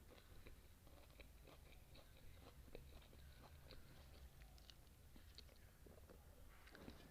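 Faint chewing from a mouth eating spicy noodles and kimchi: many small, irregular clicks and smacks.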